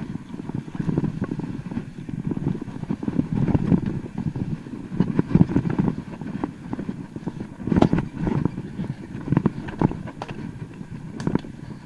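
Mountain bike going downhill over rough trail: tyres rumbling on the ground, with frequent knocks and rattles from the bike. The sharpest knock comes about eight seconds in.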